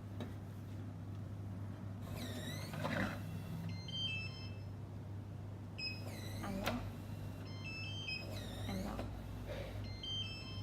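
Electronic smart deadbolt door lock operating about three times: each time a sweeping whirr that dips and rises in pitch, and a short run of stepped electronic beeps. A steady low hum runs underneath.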